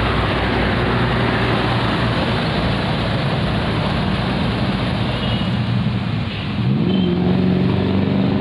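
Komatsu PC130F excavator's diesel engine running hard as the machine travels on its tracks. The engine note sags briefly about six seconds in, then climbs back up.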